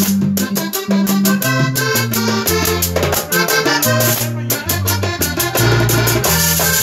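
Live vallenato music: a caja drum and a hand-held metal tube percussion instrument keep a fast, even rhythm over a steady bass line.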